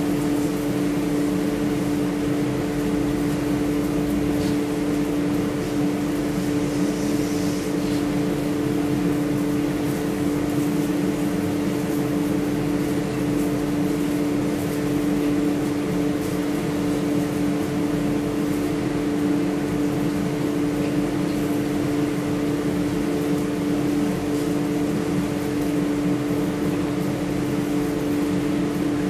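Spray booth ventilation fan running: a steady, constant hum with a low, unchanging pitch over an even rushing hiss.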